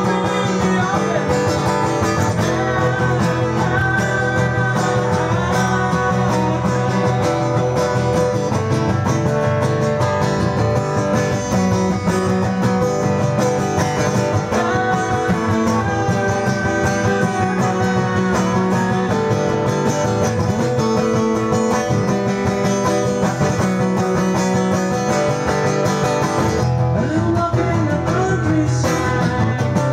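An acoustic guitar played live, strummed and picked without a break.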